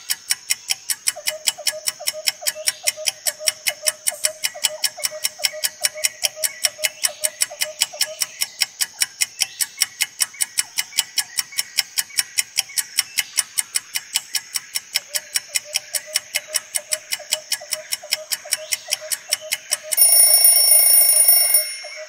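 Countdown timer sound effect: a clock ticking evenly, about four ticks a second, ending about twenty seconds in with a loud, steady alarm buzz that lasts under two seconds as the time runs out.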